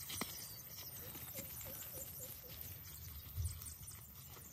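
Footsteps of several people walking through grass and dirt, with a run of about six quick, small chirps between one and two and a half seconds in, and a low thump near the end.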